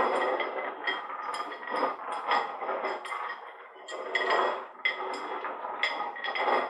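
A drinking glass clinking and rattling against a wooden table, a quick irregular run of knocks with a short glassy ring after each, as the table rocks.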